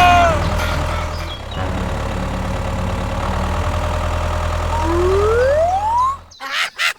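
A small motor running steadily, with a single rising whistle-like glide near the end; the running stops abruptly about six seconds in.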